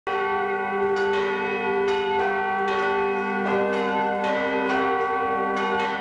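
Church bells of Königsberg Cathedral ringing. A new stroke comes a little under once a second, and each one rings on under the next.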